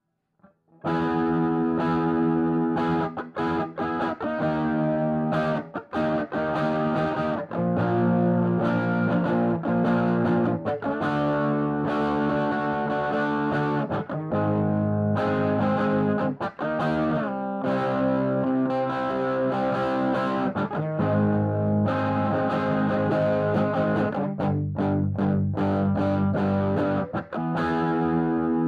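Electric guitar, a Reverend Sensei RA, played through the engaged Big Red dual pedal (a germanium treble booster and a Red Llama-style overdrive/fuzz clone) into a Frenzel Bluesbreaker amp, giving a distorted rock tone. Chords and riffs start about a second in and go on with only brief breaks.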